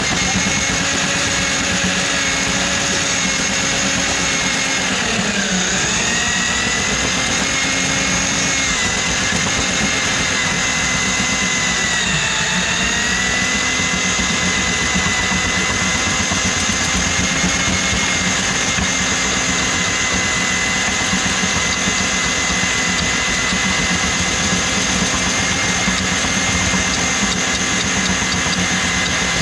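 Handheld electric drum drain auger running steadily, its cable spinning in a kitchen drain line plugged with grease. The motor's pitch sags briefly twice, about five and twelve seconds in, as the spinning cable meets resistance, then picks back up.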